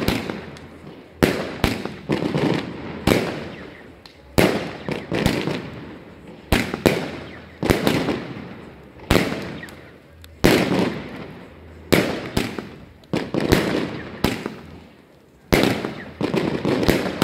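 Royal Fireworks Sky Crowns firework cake firing a series of shots, a sharp bang about every one to two seconds, often two in quick succession, each with a fading echo.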